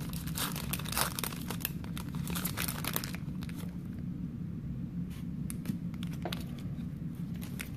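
Foil wrapper of a Pokémon card booster pack being torn open and crinkled: a dense crackle for about three seconds, then only occasional rustles as the cards are pulled out.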